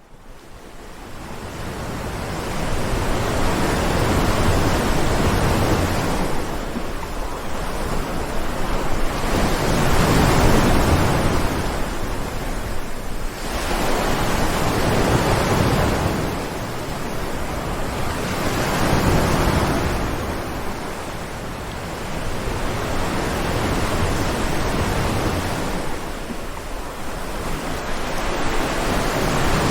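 Ocean waves breaking and washing on the shore, a continuous roar of surf that swells and ebbs with each wave every few seconds, fading in over the first few seconds.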